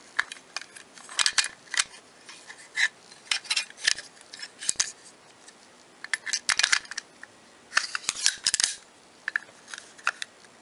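Steel parts of an M16A1 bolt carrier and charging handle clicking and scraping against the upper receiver as they are slid into place by hand: short clusters of sharp metallic clicks every second or so.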